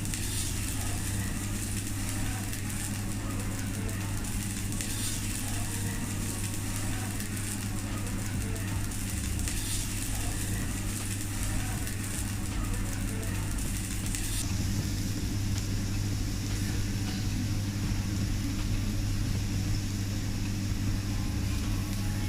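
Food sizzling on a teppanyaki griddle, a steady hiss over a constant low hum.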